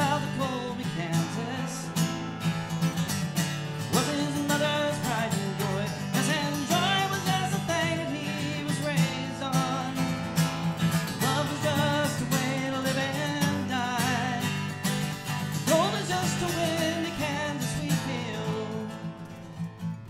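Live acoustic country-folk music: strummed acoustic guitar backed by a second guitar, with a man singing.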